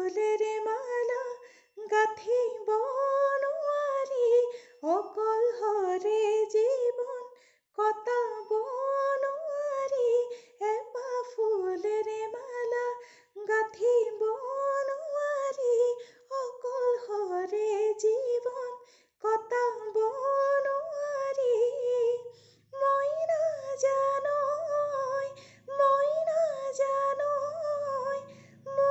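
A woman singing an Assamese song unaccompanied, in slow phrases of two to three seconds separated by short breaths.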